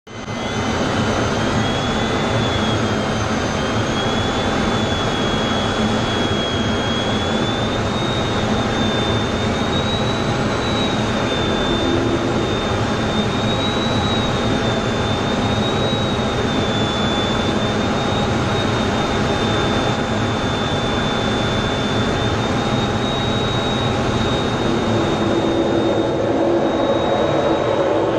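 Jet engine noise: a steady, loud roar with a high turbine whine that wavers slightly in pitch.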